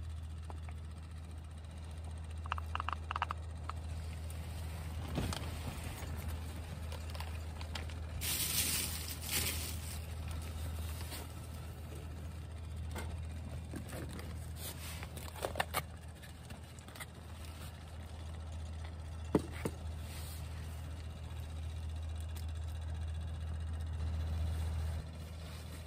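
A plastic retort pouch being squeezed out and crinkled, with light knocks of items set down on a metal mesh camp table, over a steady low rumble that stops near the end.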